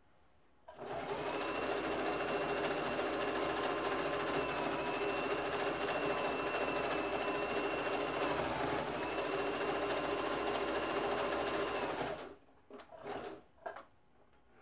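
Electric household sewing machine stitching fabric at a steady speed for about eleven seconds, slowing briefly about two-thirds of the way through, then stopping. A few short knocks of the fabric being handled follow.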